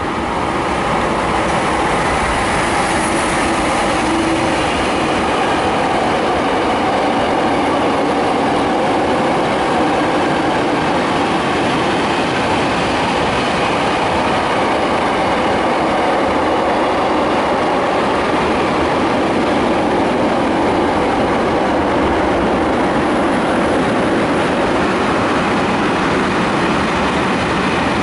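Train running through a railway station: a continuous, steady rolling noise of wheels on rails.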